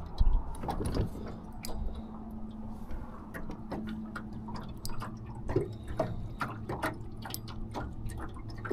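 Small water splashes and drips with scattered light clicks around a small aluminum jon boat, as a hooked fish is played on a spinning rod, over a faint steady low hum.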